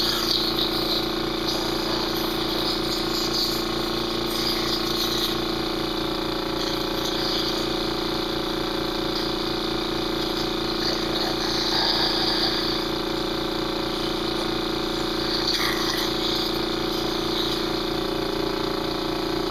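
Airway suction machine's pump running steadily with a fast, even pulse and a hiss of suction, drawing up secretions loosened by the cough assist. It switches off abruptly at the very end.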